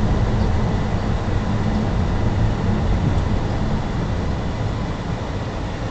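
Car engine and tyre noise heard from inside the cabin: a steady low rumble that eases slightly toward the end.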